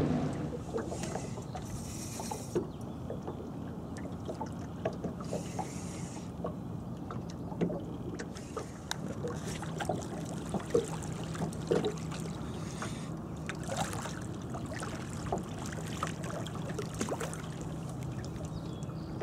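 A hooked fish splashing at the surface beside a metal boat, with water lapping and small knocks against the hull. A few short splashy bursts stand out over a faint steady hum.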